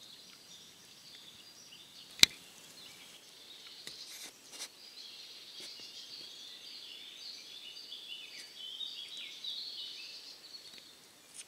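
Woodland birds singing, a dense run of high, warbling notes that builds from about three seconds in. A single sharp click comes about two seconds in.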